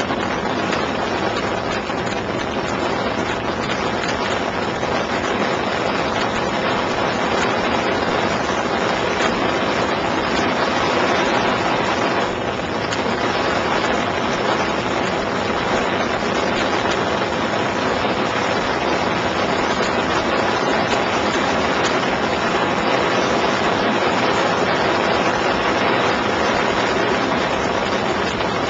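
Piper Super Cub floatplane's piston engine and propeller running steadily in cruise flight, a constant loud drone with no rise or fall, as heard from on board.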